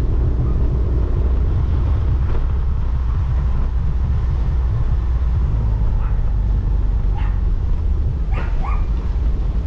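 Motorcycle engine running with a steady wind rumble while riding. A dog barks a few short times in the second half.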